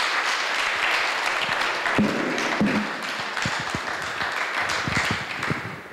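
Audience applauding, dense clapping that tapers off near the end, with a few low knocks partway through.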